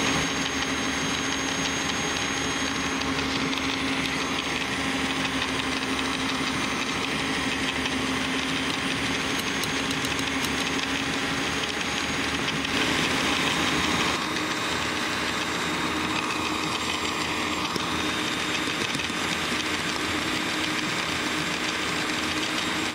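Electric mixer running steadily, its beaters whisking batter in a stainless steel bowl: a constant motor hum over a whirring rush. The hum shifts slightly higher and a little quieter about fourteen seconds in.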